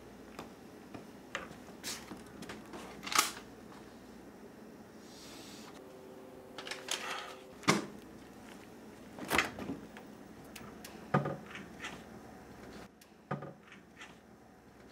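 Kitchen handling sounds from a refrigerator and cupboards: scattered sharp knocks and clicks, the loudest about three seconds in and again near eight seconds. A brief steady hum comes in about six seconds in.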